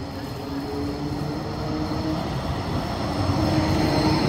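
Electric city tram coming up and passing close by, its motors giving a whine of a few steady tones over a low rumble of wheels on the rails, getting louder about three seconds in.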